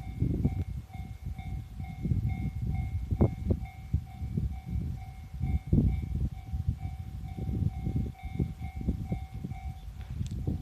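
Japanese level-crossing alarm ringing, an electronic bell repeating about twice a second, over an irregular low rumble with thumps.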